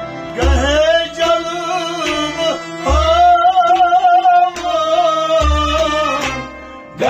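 Kashmiri Sufi song: a man singing long, wavering held notes to harmonium and a plucked rabab, with a deep beat about every two and a half seconds.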